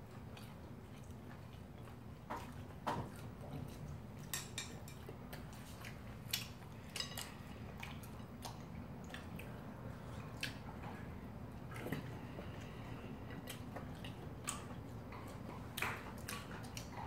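Quiet eating sounds over a low steady hum: scattered sharp clicks and taps from chopsticks against bowls, and a pet eating its food.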